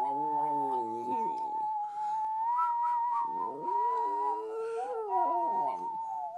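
West Highland White Terrier howling in a long, high, thin tone that wavers slightly in pitch. Lower howling calls that rise and fall join it three times, in a voice pitched like a person's howling along.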